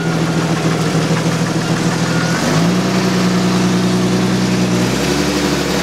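1987 Jeep's engine idling through its stock exhaust, muffler still fitted, as the Jeep creeps forward a few inches. About two and a half seconds in the engine note steps up and a deeper hum joins it, then the note shifts again near the end.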